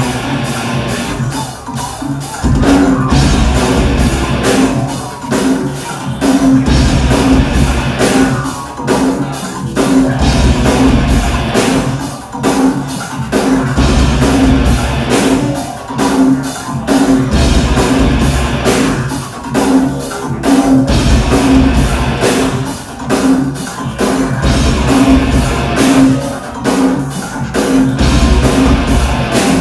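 Live industrial metal band playing loudly: distorted electric guitar over a drum kit keeping a steady, driving beat, with heavy bass pulses.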